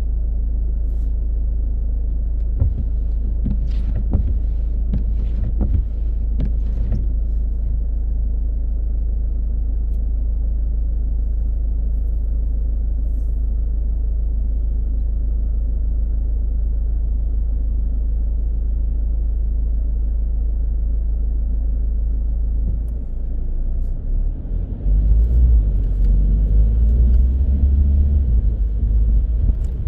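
A car driving, heard as a steady deep rumble of road and engine with a few faint clicks early on. About 24 seconds in, the rumble grows louder and rougher, with more tyre hiss.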